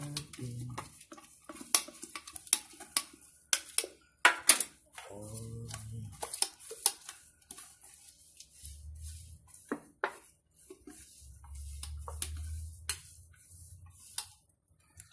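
Scattered light clicks and taps of kitchen items being handled, irregular and sharp, with a few stretches of low rumble.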